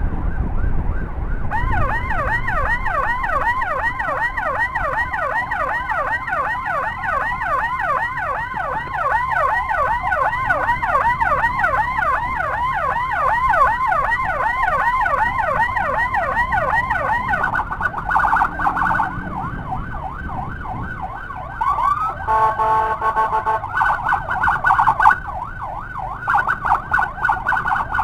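Electronic emergency siren running in a fast yelp for about fifteen seconds, then switching to a rapid warble. Partway through the warble there is a short, steady multi-tone blast.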